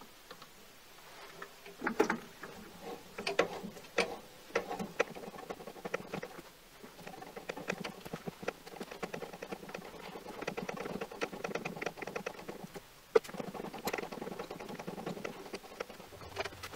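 Tap cutting an internal thread into a metal part held in a mini lathe chuck: irregular scraping and creaking with sharp clicks as the tap bites and the chips break. It begins about a second and a half in, pauses briefly in the middle, and ends with a loud click a little after halfway on.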